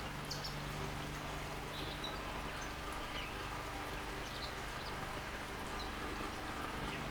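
Water flowing and trickling in a bird bath fountain, with scattered short, faint chirps of small garden birds and a steady low hum underneath.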